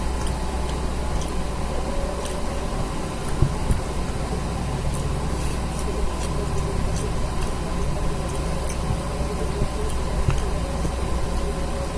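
Scattered small clicks and mouth sounds of someone eating chicken curry and rice, over a steady low mechanical hum.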